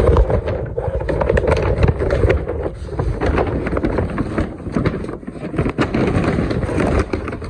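Loud rustling, rubbing and knocking right at the phone's microphone: handling noise from an arm and hands brushing past and moving the phone.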